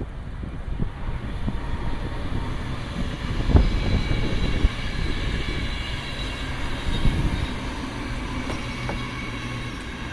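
2018 Kia Niro 1.6 GDi Hybrid on the move: steady road and tyre rumble with a sharp thump about three and a half seconds in and another a second later. A faint steady high whine runs over it from about three seconds in.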